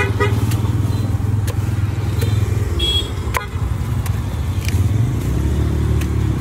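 Machete chopping into young palmyra palm fruits on a wooden block, sharp knocks about once a second, over the steady low rumble of motor vehicle engines running.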